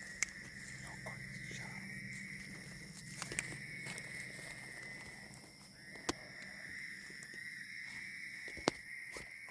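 Night insects droning steadily in a constant high chorus. A few sharp clicks sound over it, about one every two to three seconds.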